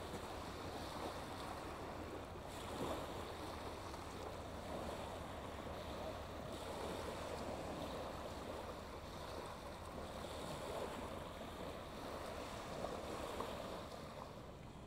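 Small waves washing onto a shingle beach: a steady wash of water that swells and eases.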